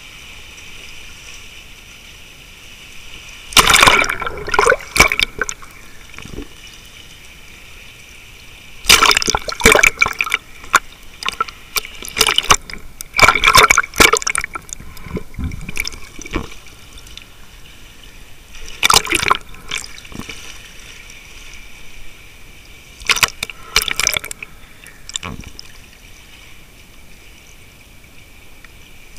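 Sea water sloshing and bubbling around a camera at and just under the surface, in several loud surges a few seconds apart over a steady muffled hiss.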